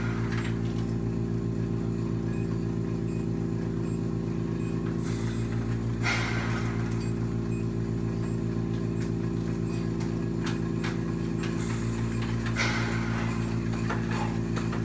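Machinery of an EWOT oxygen system running in its low-oxygen setting: a steady hum with a fast, even pulsing, broken by brief hisses about five, six and twelve seconds in.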